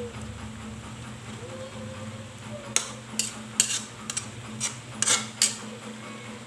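Kitchenware clinking: a quick series of about eight sharp clinks and knocks of a utensil against pots or dishes, starting about three seconds in, over a steady low hum.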